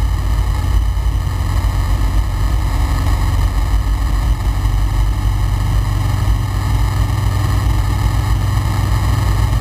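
Flight Design CTLS light aircraft in flight, its Rotax 912 flat-four engine and propeller running steadily at cruise power: a constant low drone with airflow hiss, heard from inside the cockpit.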